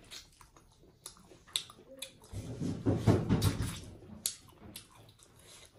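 Close-up wet eating sounds of a person eating rice and chicken soup by hand: scattered lip smacks and mouth clicks, with a louder, denser stretch of wet chewing about halfway through.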